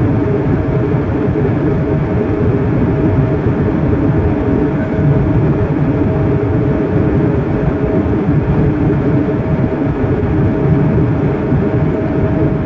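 Airliner cabin noise in cruise: the steady low rumble of the jet engines and rushing air, with a faint steady hum tone riding on top.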